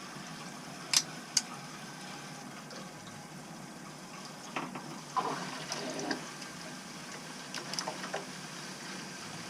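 Water running steadily as air is purged out of a combi boiler's coil after a pump replacement, with two sharp clicks about a second in and a few brief louder bursts later on.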